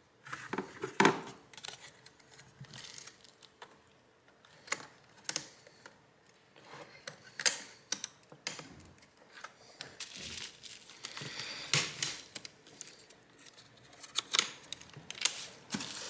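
Irregular small clicks and taps of a screwdriver and small parts being handled while the NVMe SSD's screw is fitted into a laptop.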